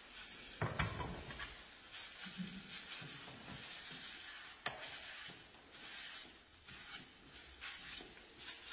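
Mortar flow table top being wiped clean around the filled cone mould: repeated faint rubbing strokes, with a soft knock about a second in and a sharp click near the middle.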